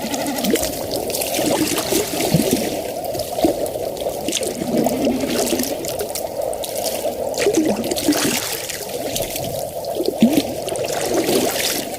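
Water trickling steadily, a continuous run of small irregular splashes.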